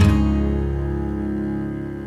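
Background music: an acoustic guitar chord strummed at the start and left ringing, slowly fading away.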